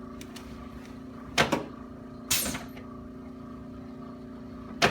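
A patient's body shuffling down a padded chiropractic treatment table: three short rubbing, sliding sounds, about a second and a half in, past two seconds, and near the end, over a steady low hum.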